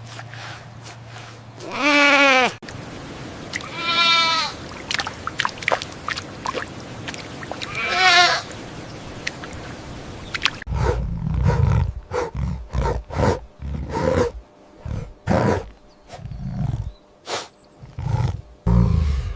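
Three long, quavering bleats from a goat or sheep-type animal, spaced a couple of seconds apart. From about eleven seconds in, a rapid series of short, low calls with a deep rumble follows.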